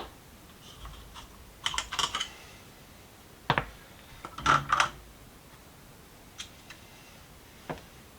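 Small metal parts being handled and set down, making light clicks and clatters in a few short clusters: one about two seconds in, a sharp single click at about three and a half seconds, and a louder clatter around four and a half seconds, then a couple of faint ticks.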